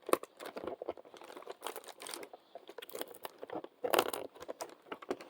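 Crinkly packaging being handled and torn open by hand to unwrap a small toy, in irregular crackles, loudest about four seconds in.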